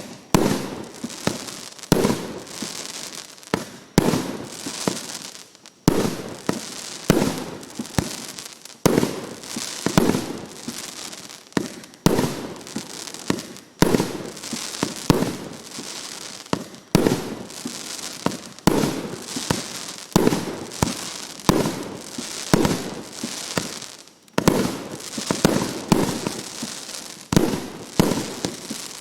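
A 300-shot, 1.2-inch fireworks cake firing in rapid succession: a sharp shot every second or so with smaller ones between, each followed by crackling.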